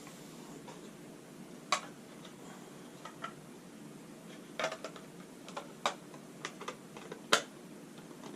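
Scattered sharp clicks and taps of small hard objects being handled, a few seconds apart; the loudest come about a second and a half in and near the end, with a quick cluster in the middle.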